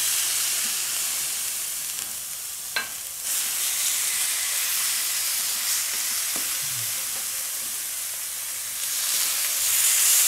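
Wild duck breasts sizzling as they are laid onto a hot steel fire plate with tongs. The steady hiss swells near the end, and there is one sharp click about three seconds in.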